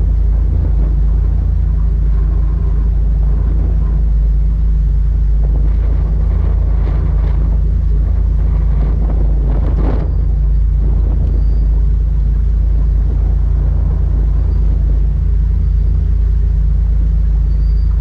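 Motorboat's engine running steadily at low speed, a constant low rumble that swells a little about ten seconds in.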